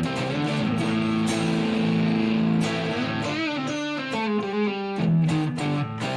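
1958 Gibson Les Paul Special electric guitar on its neck P-90 pickup, played through a Marshall Plexi amp model with a little grit and no effects. It plays held chords, then a single-note lead line with bent notes about halfway through, then chords again near the end.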